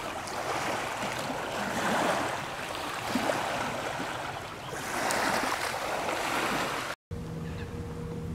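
Small waves lapping on a lake shore, a steady wash that swells and eases every few seconds. At about seven seconds it cuts off suddenly and a steady low hum with a faint held tone takes over.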